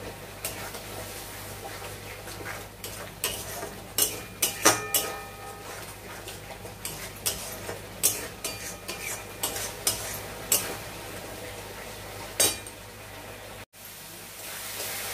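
Metal spatula scraping and clinking irregularly against a steel kadai as spiced onion-tomato masala is stirred and fried down, over a faint sizzle and a low steady hum. Near the end the sound drops out briefly and the sizzle comes back louder.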